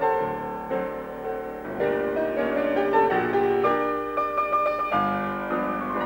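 Piano playing a light accompaniment for a morning exercise routine, a run of separate notes with a falling run near the end.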